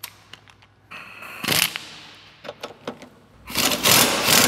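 A few metal clicks as a 21 mm socket and extension are fitted, then, about three seconds in, a cordless impact wrench starts hammering in a loud, rapid rattle, breaking loose a rear subframe bolt.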